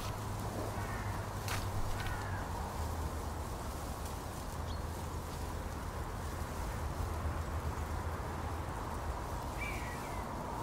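Open-air festival ambience: a steady background hum and hiss, with a few brief bird chirps and a couple of sharp knocks in the first two seconds.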